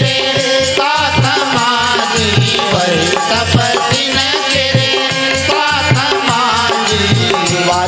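Devotional bhajan music: a male voice singing a wavering melody over a steady drum beat and a rattling shaker.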